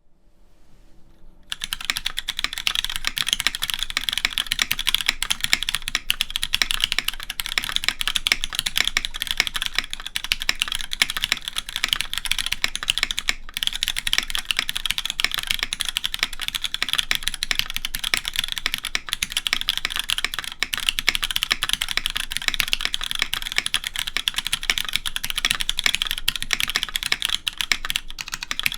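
Fast, continuous typing on a Duck Jetfire custom mechanical keyboard with Cherry MX Black linear switches in a top-mounted aluminum full plate and GMK keycaps, starting about a second and a half in. The keystrokes are crisp, clicky clacks that the builder finds a tad too sharp on the letter keys, with the spacebar sounding pleasant.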